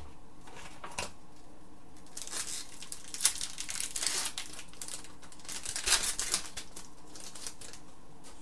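Wrapper of a hockey trading-card pack crinkling and tearing as it is opened by hand. It comes in a few seconds of rustling bursts, with two sharp snaps, the loudest sounds, in the middle.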